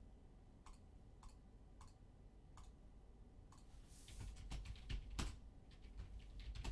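Computer mouse clicked repeatedly, sharp separate clicks about every half second that come closer together in the second half, as a randomizer is run twelve times. A low rumble joins the clicks in the second half.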